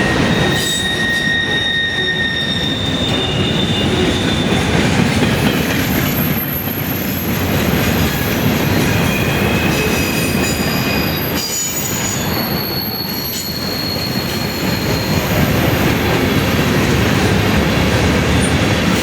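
Freight train rolling past with a steady rumble, its wheels squealing. Several thin, high-pitched squeals come and go throughout.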